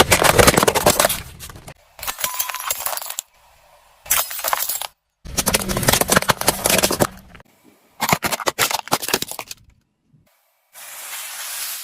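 Plastic objects cracking and snapping as a car tyre rolls over and crushes them, with many sharp crackles. It comes as about six short bursts that start and stop abruptly, each broken off by a cut.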